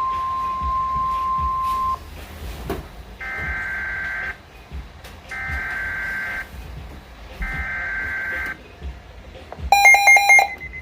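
Weather radio alert: a steady alarm tone near 1 kHz cuts off about two seconds in. It is followed by three one-second bursts of screeching two-tone digital data, the SAME header that encodes the alert. Near the end comes a short run of sharp electronic beeps.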